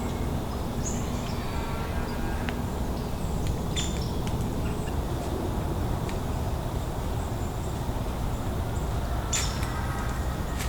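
Birds calling outdoors over a steady low rumble: a few short high chirps, and one harsh, buzzy call about two seconds in.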